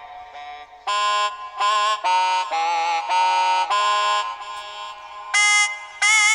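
Electronic keyboard playing a single-line melody in a reedy, wind-like voice: about a dozen separate notes with short gaps between them, a few held longer with a slight vibrato.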